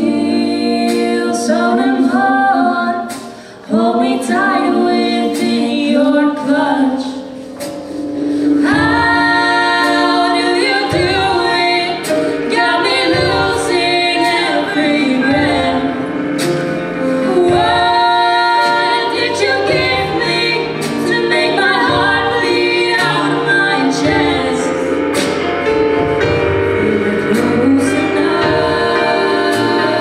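Live pop ballad from a small band: two female vocalists singing over piano and a Pearl drum kit. The music swells and becomes fuller about nine seconds in.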